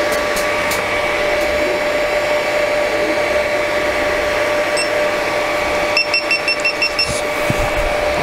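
Cooling fans of a Creality Ender 3 V2 3D printer, the hotend fan and a fan in the base housing, running with a loud, steady whir and a whine. The owner believes the loudest is in the base, probably the power-supply fan.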